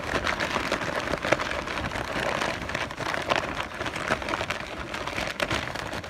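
Crumpled white packing paper crackling and rustling continuously as a hand rummages through it in a box.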